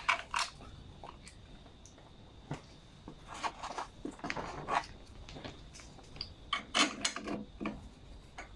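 Scattered light clicks and taps of small parts being handled, a washer and bolt, while a lawnmower throttle control is fitted in place, with busier clusters of clicks in the middle and near the end.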